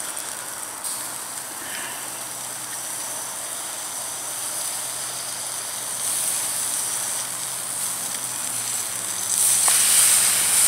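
Steaks sizzling on a grill grate over hot charcoal, a steady hiss that grows louder in the last second or so.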